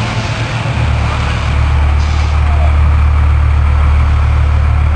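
Fire engines running at the scene: a steady low engine drone that grows louder about a second in and holds, over a wash of outdoor noise.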